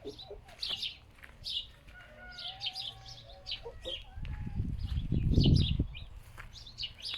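Small birds chirping, many short high calls throughout. A low rumbling noise, the loudest sound, swells a little past four seconds in and fades by about six seconds.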